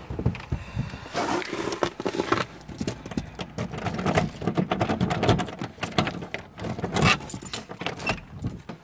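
A ring of keys jangling, with many irregular clicks and rattles against a door lock as the cabin door is unlocked.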